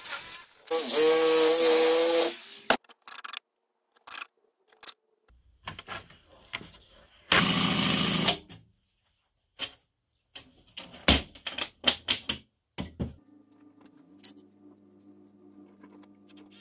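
Workshop tool sounds in quick succession: a jigsaw cutting thin aluminium sheet for about a second and a half, then a short loud burst from a power tool about eight seconds in. Scattered knocks and clicks follow, and a faint steady hum runs near the end.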